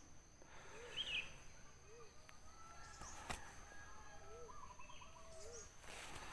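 Faint birdsong from several birds: short low hoots repeating every second or so, with a few higher chirps and a brief trill, over a steady thin high whine. A single click about three seconds in.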